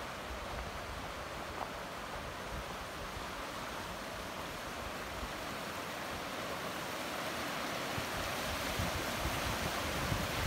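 Steady rush of flowing water, growing slowly louder toward the end.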